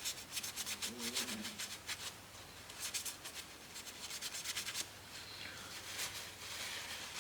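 A piece of paper being rubbed quickly back and forth over a laptop heatsink, wiping off old thermal paste, as a rapid scratchy rubbing with short pauses.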